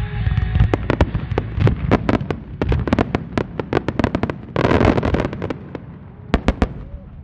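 Starmine finale of aerial firework shells bursting in a rapid barrage of sharp bangs, a few tenths of a second apart, with a dense burst of crackle about four and a half seconds in, then a few last bangs before it dies away.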